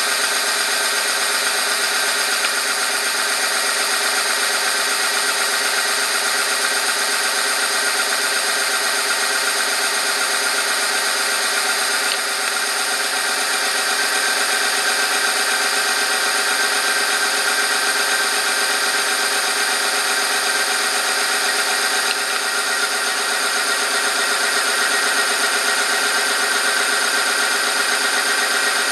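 Oil-film friction tester running under load: its electric motor turns a shaft against a weighted metal sample lubricated with engine oil heated to 100°C, making a steady mechanical running noise with several steady tones that holds an even level.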